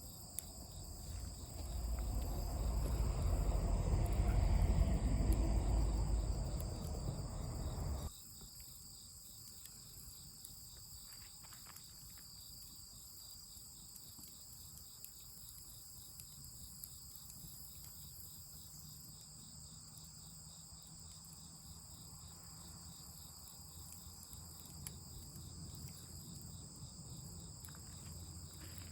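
Insects chirping in a steady high drone at several pitches. For the first several seconds a loud low rumble covers it, then cuts off suddenly. A few faint clicks follow.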